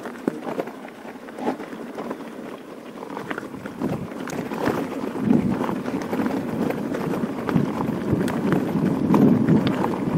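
A mountain bike rolling over a loose gravel track: tyre noise on the stones with frequent clicks and rattles from the bike. The rolling noise grows louder about halfway through.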